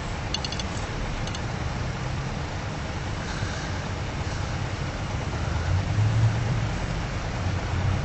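Steady low rumble of distant road traffic under a hiss, swelling a little about six seconds in, with two brief high chirps in the first second and a half.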